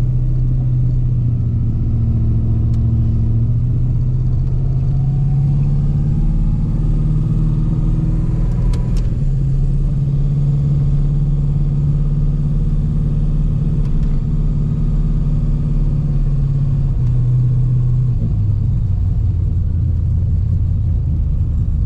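LS1 5.7-litre V8 in a VN Commodore running on its first drive after the engine swap, a steady low engine note that rises and falls a little with the throttle and drops in pitch near the end.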